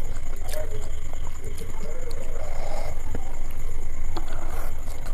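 Close-up eating sounds: fingers picking at chicken biryani on a plate and chewing, with scattered small clicks. A steady low hum runs under it.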